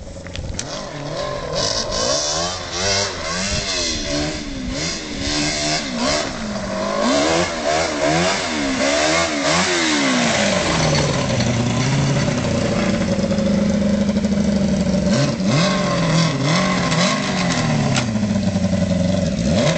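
Quad bike engine revving up and down in quick, repeated throttle blips, then running at a steadier pitch and louder from about halfway through.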